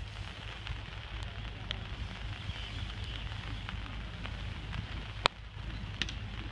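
Light rain pattering close to the microphone, with a low wind rumble underneath and one sharp tap about five seconds in.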